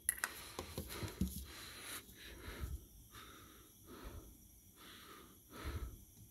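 Olive oil poured from a large plastic jug into a nonstick frying pan: faint, uneven glugging as air gurgles back into the jug. A few light clicks from handling the jug come in the first second.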